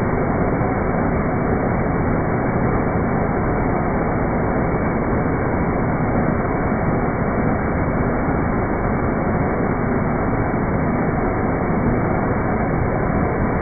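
ANMEC BL330E metal lathe taking a turning cut with mist coolant spraying onto the work: a steady, even noise from the machine, the cut and the spray, unchanging throughout.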